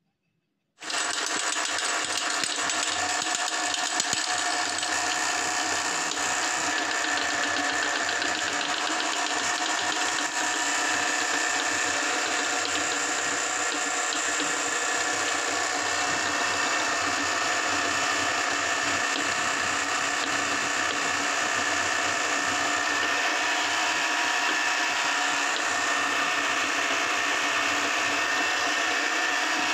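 An electric meat grinder's motor starts abruptly about a second in and then runs at a constant, steady pitch, pushing gummy jelly candies out through its cutting plate.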